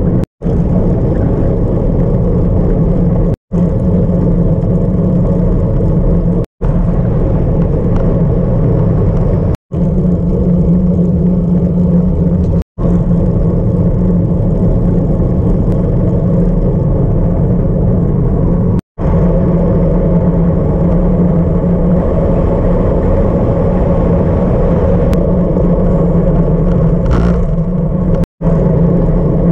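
Steady wind rush and road noise on a handlebar-mounted camera's microphone as a road bicycle rolls along asphalt. The sound drops out for an instant every few seconds.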